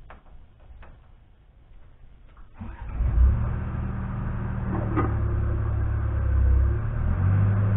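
A few faint clicks, then about two and a half seconds in the New Holland LX665 skid steer's diesel engine cranks, catches and settles into a steady idle.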